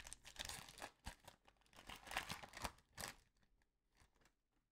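Faint rustling and crinkling of trading cards being handled and slid through a pack, with a few soft scrapes.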